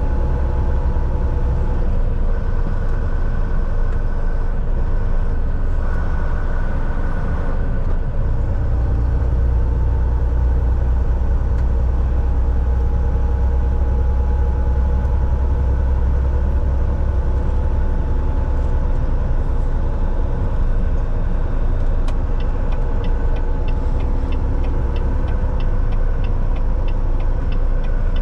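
Semi-truck driving along, its diesel engine and road rumble steady and loud inside the cab. About three-quarters of the way through, a regular light ticking of roughly two a second joins in.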